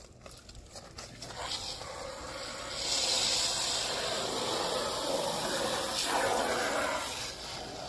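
Water from a garden hose spray nozzle running into a plastic mixing bin to wet bagged mortar mix, a steady hiss that grows louder about three seconds in and eases slightly near the end.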